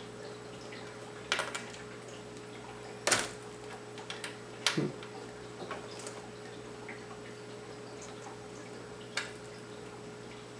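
Small screwdriver and fingers clicking and tapping against the laptop's screen frame as the little screws holding the LCD panel are taken out: a few scattered light clicks over a faint steady hum.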